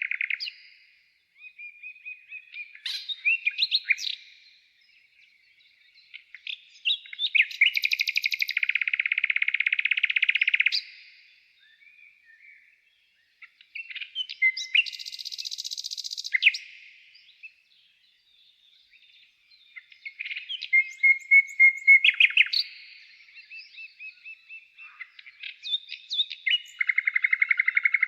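A songbird singing in phrases of a few seconds, made of quick chirps and fast buzzing trills, with short pauses between phrases.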